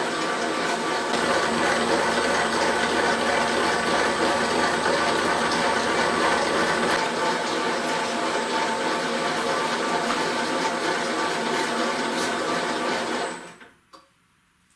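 Famag Grilletta IM 5-S spiral dough mixer running: its single-phase motor and drive give a steady whir with several steady tones. It stops about 13 seconds in, followed by a couple of faint clicks.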